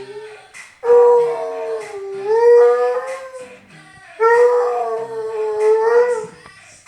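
Hound dog howling along to a song: two long howls, the first wavering up and down in pitch, the second held steady for about two seconds.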